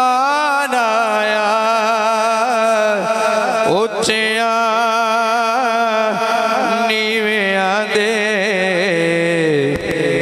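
Male naat reciter singing long, wavering melismatic phrases without clear words, starting a new phrase about 4 and 7 seconds in, over a steady low drone that steps down in pitch near the end.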